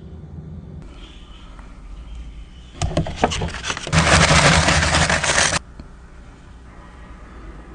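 Food packaging being handled: a few sharp crackles about three seconds in, then a loud crinkling rustle for about a second and a half that stops abruptly.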